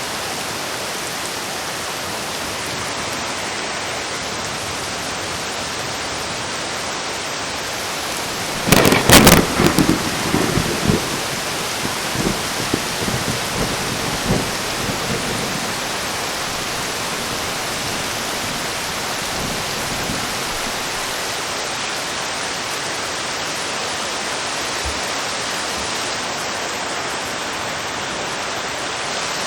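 Heavy rain falling steadily. About nine seconds in, a sharp thunderclap breaks, then rolls on in uneven rumbles for several seconds before the rain alone remains.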